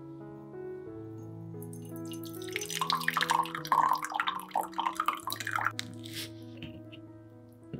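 Coffee poured from a French press into a ceramic cup, the pour starting about two seconds in and stopping about six seconds in. Soft piano music plays under it.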